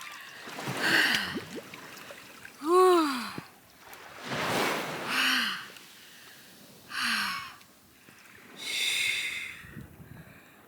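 A woman breathing hard in freezing sea water: sharp gasps and breathy exhales come every second or two, some with a short voiced sound falling in pitch. This is cold-shock breathing while she shivers.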